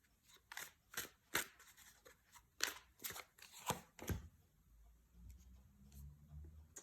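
Tarot cards being shuffled and handled, a run of about seven short, sharp card snaps in the first four seconds, then quiet handling.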